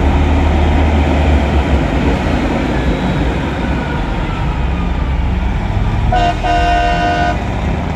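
Heavy truck engines rumbling as rigs roll past, then about six seconds in a truck horn gives one blast of a little over a second.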